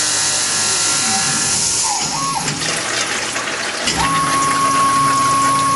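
Tormach PCNC 1100 CNC mill running under flood coolant: coolant spray hissing over the machine's steady whine. About two seconds in the hiss turns choppier, and from about four seconds a new steady high whine holds.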